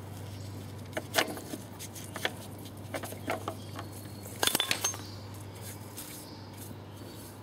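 Scattered light clinks and taps of small hard objects knocking, the loudest cluster about four and a half seconds in, over a steady low hum.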